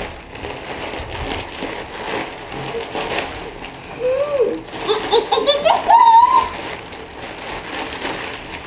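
Plastic mailer bag crinkling and rustling as it is ripped open and wrapped toys are pulled out. About four seconds in, a child giggles and gives a rising excited squeal before the crinkling resumes.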